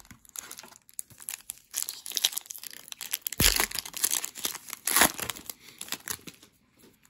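Foil wrapper of a hockey card pack crinkling in the hands and being torn open, with two louder rips about three and a half and five seconds in.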